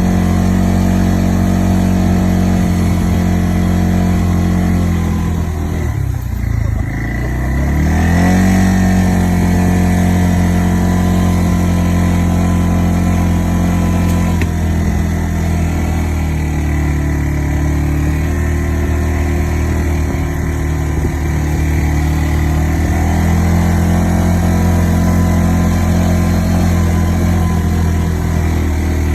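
ATV engine running steadily under way. About six seconds in the engine speed drops briefly, then climbs back up a couple of seconds later as the throttle is eased off and opened again.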